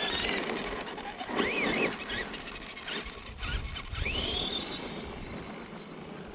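Electric RC monster truck's motor whining as the throttle is worked, its pitch wavering up and down and then sweeping sharply upward about four seconds in before fading. Under the whine, the tyres crunch and spray over loose gravel.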